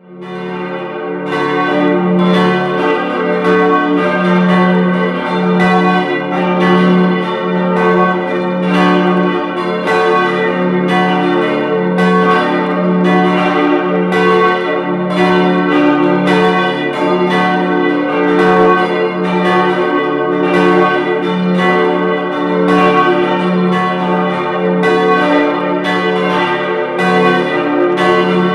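Full peal of four church bells tuned d', f-sharp', a' and b', all ringing together in a dense, irregular, overlapping stream of strikes with long sustained hum. It fades in over the first couple of seconds.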